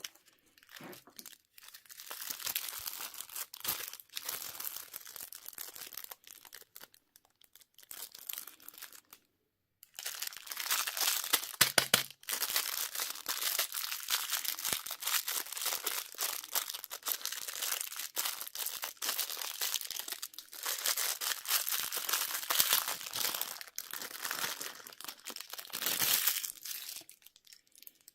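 Plastic candy wrappers crinkling and tearing as they are handled and unwrapped, a busy crackle of many small crackles, broken by a short pause about ten seconds in.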